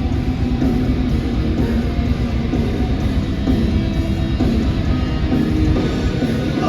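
A live heavy band playing loud, with distorted electric guitars and drums.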